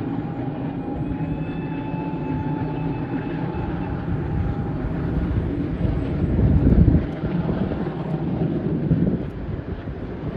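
A train running on the rails: a steady rumble with a faint high whine over the first few seconds. It swells to its loudest about six to seven seconds in.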